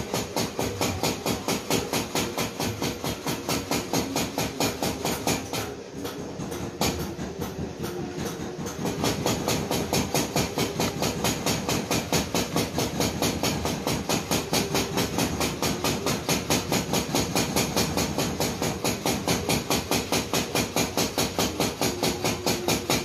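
Steady rhythmic mechanical clatter, about four sharp beats a second, over a steady hum.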